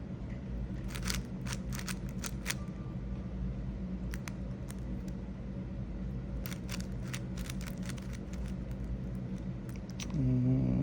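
GAN 562 M magnetic 5x5 speed cube being turned by hand: bursts of quick plastic clicks as the layers snap round, over a steady low hum.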